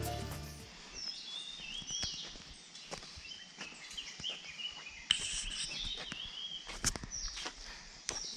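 Birds singing outdoors in repeated short, high chirping phrases, with a few soft footsteps on a path.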